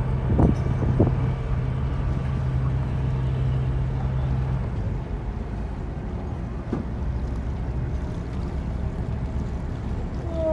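Boat engine running steadily as the boat cruises, a low rumble with wind on the microphone. A steady low hum in it drops out a little under halfway through, and a couple of brief louder sounds come in the first second.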